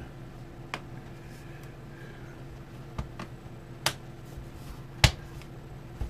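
The snap-in bottom cover of a Lenovo IdeaPad Flex 5 laptop clicking into place as it is pressed down: a few sharp clicks, the loudest about five seconds in, as the cover's clips snap back onto the chassis.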